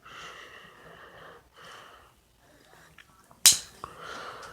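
The hinged zippo-style lid of an electric lighter being flipped: one sharp, loud click about three and a half seconds in, with a couple of faint ticks just before and after it.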